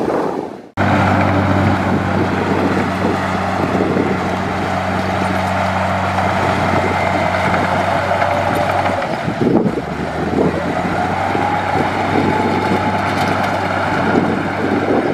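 Heavy diesel engine of earthmoving machinery running steadily under a low hum, with wind noise on the microphone. The sound cuts in after a brief dropout about a second in, and the engine note shifts around the two-thirds mark.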